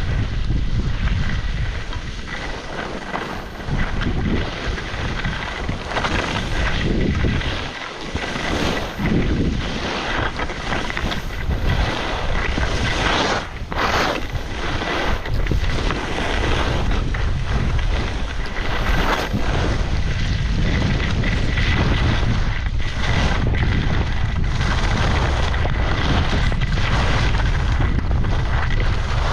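Wind rushing over a GoPro's microphone while skiing downhill, with skis sliding over snow. The noise runs loud and unsteady, with a low rumble.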